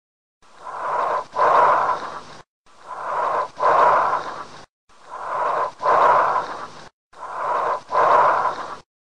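Recorded bronchial breath sounds: four breaths, each a harsh, hollow inhalation, a short silent gap, then a louder exhalation about as long as the inhalation.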